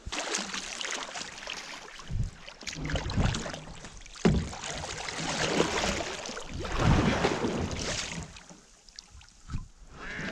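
Kayak paddle strokes splashing and swishing through calm water, repeating about every second.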